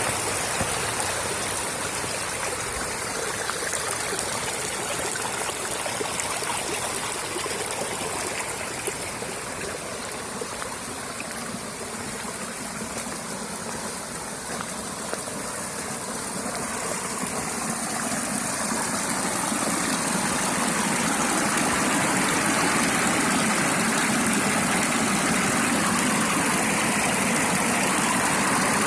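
Small creek running steadily, a continuous rush and trickle of flowing water that grows a little louder in the last third.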